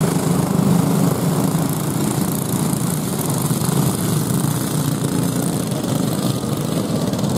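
A pack of racing go-karts with 5 hp Briggs & Stratton flathead (Raptor) engines running together at speed on a dirt oval, a steady, dense engine drone.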